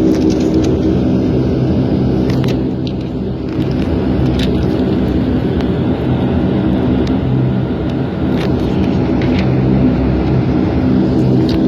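Bombardier Q400 turboprop heard from inside the cabin, its Pratt & Whitney PW150A engines and propellers droning loudly and steadily at high power, as on the takeoff roll. A few sharp cabin rattles and clicks come through on top.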